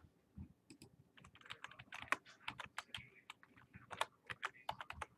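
Typing on a computer keyboard: a quick, uneven run of key presses.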